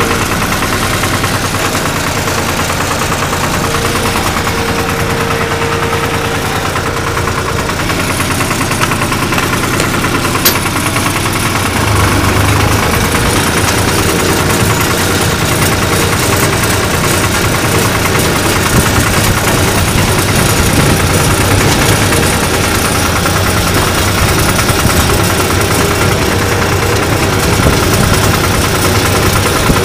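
Diesel engine of a 1974 Long 350 farm tractor running steadily under way, getting louder and heavier about twelve seconds in. A single sharp click is heard about ten seconds in.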